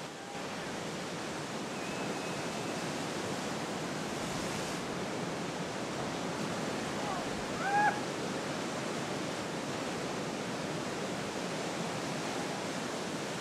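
Steady wash of ocean surf, with a brief high rising call about eight seconds in.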